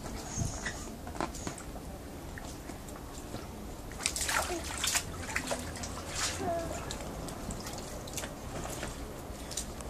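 Light splashing and sloshing of water in an inflatable paddling pool as a toddler paddles with her hands from a float ring, in scattered small splashes with a louder cluster about four to five seconds in.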